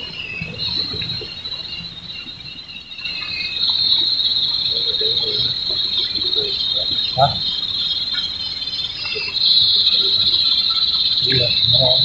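Insect chorus in a pine forest: a steady, high, shrill buzzing trill that swells louder about a third of the way in and again about three quarters through.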